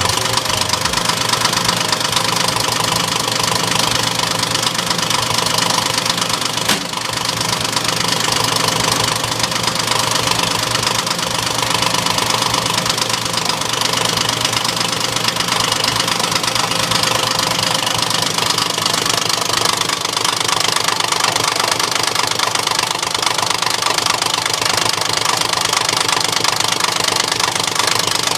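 A machine running steadily with a fast, even knocking rhythm.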